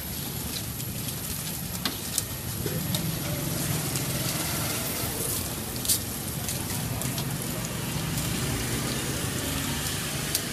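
Pieces of food deep-frying in a wok of oil, a steady sizzle, with a few sharp clicks as the metal tongs and wire strainer knock against the wok, over a low rumble.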